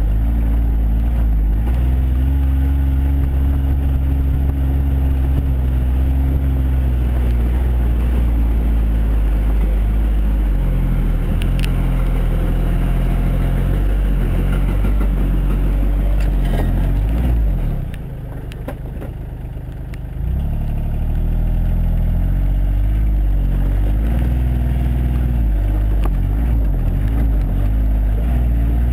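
John Deere Gator 855D's three-cylinder diesel engine running as the utility vehicle drives off-road, its pitch rising and falling with the throttle. Two sharp knocks partway through come as it climbs over a steel pipe and a wooden pallet, and the engine briefly goes quieter about two-thirds of the way through before picking up again.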